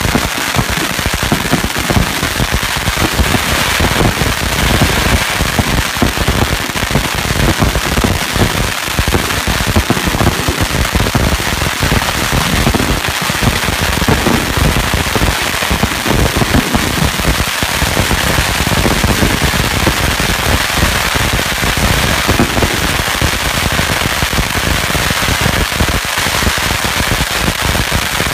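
Many long strings of red Chinese firecrackers exploding at once: a loud, dense, unbroken crackle of rapid bangs.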